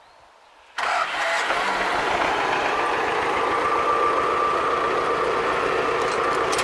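T-25 tractor's two-cylinder air-cooled diesel engine, coming in abruptly about a second in and then running steadily at idle.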